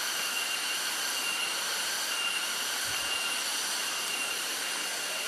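Steady rushing noise of a waterfall, with a thin high-pitched whine held throughout.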